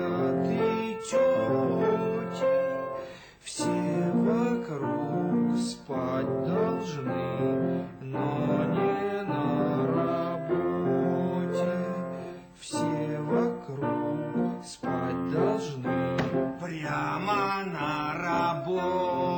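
Piano music with a voice singing over it, some notes sliding in pitch.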